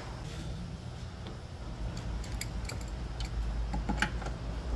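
Light metallic clicks and taps of a hand wrench working on the brake line fittings in the engine bay, a few a second from about two seconds in, the sharpest near the end, over a low steady hum.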